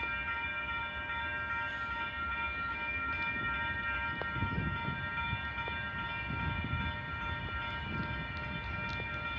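Railway level-crossing warning bell ringing continuously, a steady clang of several tones, over a low rumble that swells a few times.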